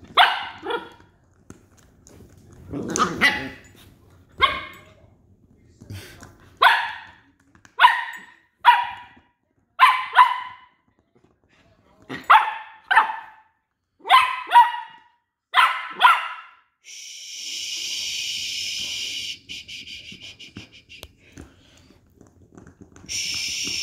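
West Highland white terriers barking in play while wrestling: a dozen or so short barks, roughly one a second, stopping about sixteen seconds in. After that comes a steady high hiss for a few seconds, and again near the end.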